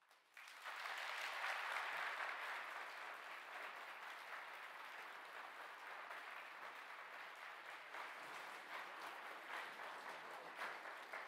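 Audience applauding, starting about half a second in, strongest over the first couple of seconds and then carrying on a little lower.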